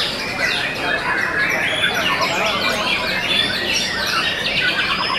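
Several caged white-rumped shamas (murai batu) singing at once: dense, overlapping whistled phrases and chatter, with a fast trill of repeated notes near the end.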